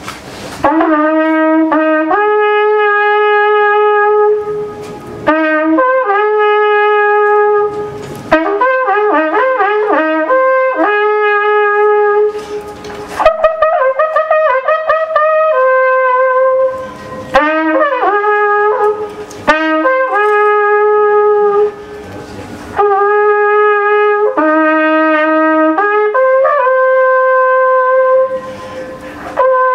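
A long wooden shepherd's horn being played loud. It holds natural-overtone notes, with a few quick ornamented runs, in phrases broken by short pauses for breath.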